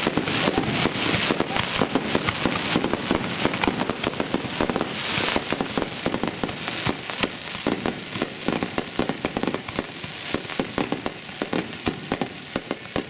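A barrage of aerial fireworks heard from very close: rapid, dense pops and bangs from bursting shells, thinning out to separate pops over the last few seconds.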